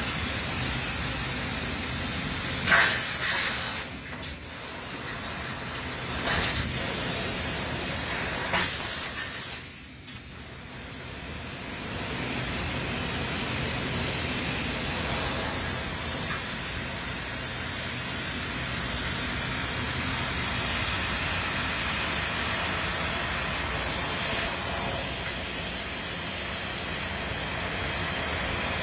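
Steady factory machinery noise with a continuous hiss, broken by a few short, louder hissing bursts in the first ten seconds.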